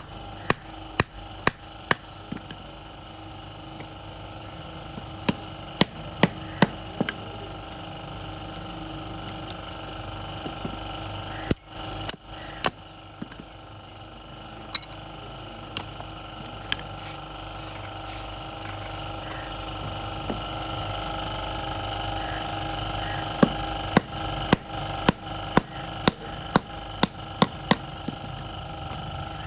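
Metal hand tools knocking and tapping on metal in irregular sharp strikes, closer together near the end, over a steady background hum.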